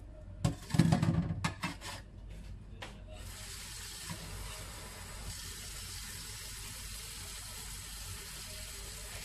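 Water being added to a pan of cooking paella: a few knocks and a loud splash in the first two seconds, then a steady hiss of running water for several seconds.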